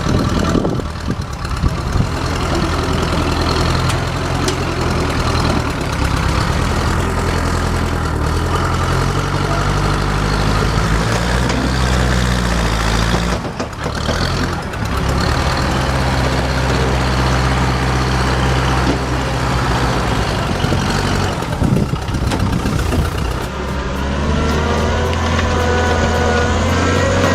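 Heavy diesel machinery engine running under steady load, with abrupt changes in the engine note where the footage cuts. Near the end a higher engine note rises in pitch over it.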